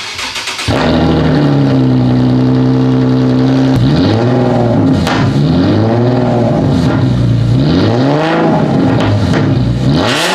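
2012 Infiniti G37's 3.7-litre V6 cranked briefly and catching, idling steadily for a few seconds, then blipped through about five short revs that rise and fall in pitch. It is a warm restart rather than a cold start, the engine having run about two hours earlier.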